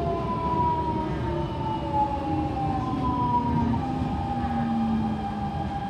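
Siemens C651 metro train's traction motors whining with several tones that fall steadily in pitch as the train slows, over a steady rumble of wheels on rail heard from inside the carriage.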